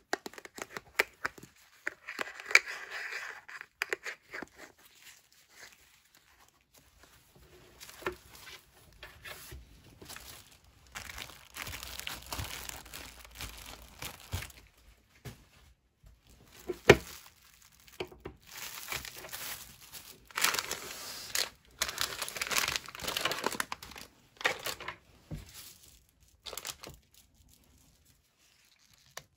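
Clear plastic meal-pack bag crinkling and rustling in bursts as it is handled, with scattered clicks and a few sharp knocks, the loudest a little past halfway. Metal food cans click against each other near the start.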